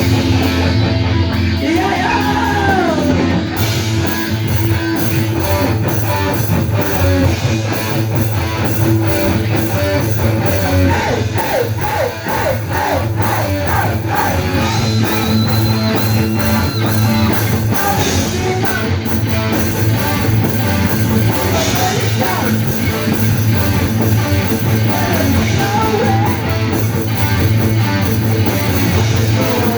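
Punk rock band playing live: loud distorted electric guitar over drums keeping a steady beat, with no breaks.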